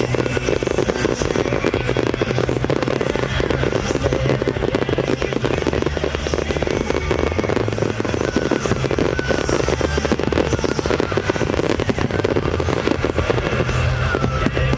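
A fireworks barrage going off in a dense, rapid crackle of small bangs, over loud music with steady bass notes.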